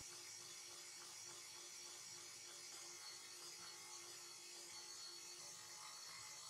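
Stand mixer running at a steady speed, its dough hook kneading bread dough as a piece of butter is worked in; a faint, even motor hum.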